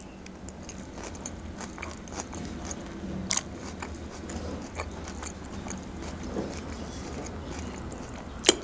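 Close-up chewing of a mouthful of Caesar salad: soft crunching and wet mouth noises with scattered small crackles. Near the end, a sharp clink of a metal fork against the plate.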